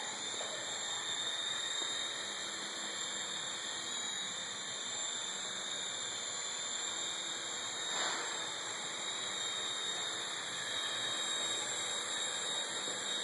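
Small coaxial electric RC helicopter flying: a steady high-pitched whine of its little electric motors and spinning rotors. There is one brief sharp sound about eight seconds in.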